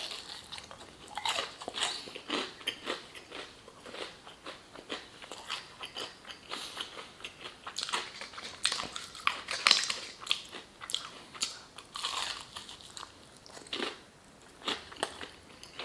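Close-up chewing of crispy fried chicken breading: many small crunches and crackles, with bunches of louder crunches now and then.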